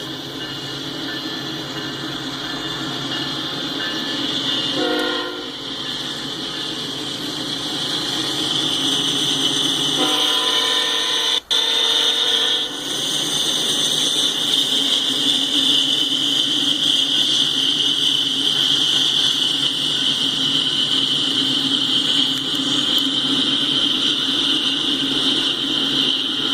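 Diesel locomotive horn at the head of a coal train: a short blast about five seconds in, then a longer blast about ten seconds in. Under it, the train rolls past with steady, loud rail noise and a high hiss that carries on after the horn stops.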